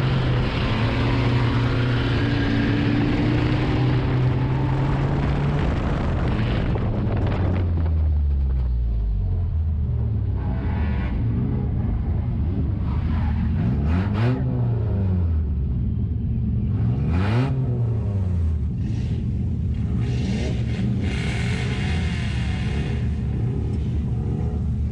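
Nissan enduro race car's engine heard from inside the cabin, running at steady high revs, then its pitch dropping about eight seconds in as it comes off the throttle, and revving up and falling back twice in the middle.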